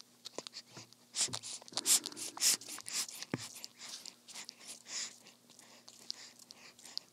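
Newborn baby sucking on a pacifier: irregular wet clicks and smacks, loudest in a cluster between about one and three seconds in.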